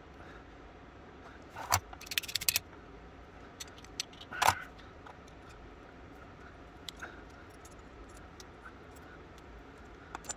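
Sharp metallic clicks and clinks of small tools and the pistol's lock parts being handled while the lock is worked against its stiff mainspring. There is a click nearly two seconds in, a quick rattle of clicks right after, the loudest click about four and a half seconds in, and a few faint ticks later.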